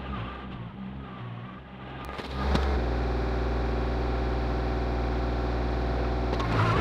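Compact loader tractor's engine running, fairly quiet at first, then growing louder about two and a half seconds in and holding a steady, even running sound as the tractor works the backfill with its front bucket.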